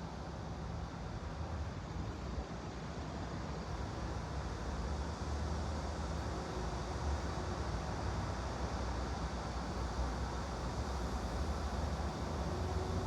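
Steady background noise with a deep low rumble underneath, growing slightly louder over the first few seconds and then holding even.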